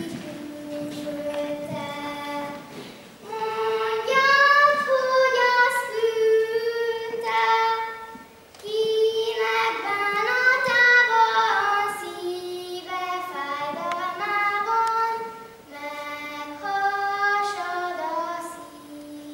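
A child's voice singing a slow melody in long held notes, in phrases broken by short pauses.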